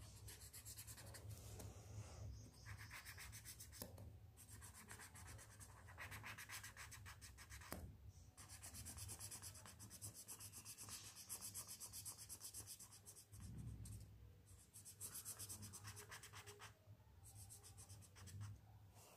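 Faint scratching of Doms felt-tip sketch pens rubbing over paper as a drawing is coloured in, stopping briefly a few times.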